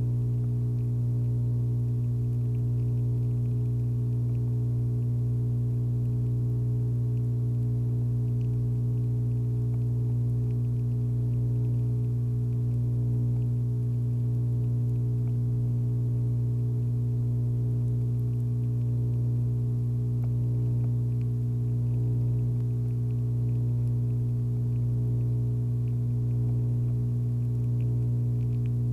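A steady low hum with a stack of overtones, unchanging in pitch and level.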